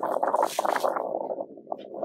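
Rustling and crinkling of a clear plastic bag as a set of dog boots is pulled out of it, loudest in the first second and softer after.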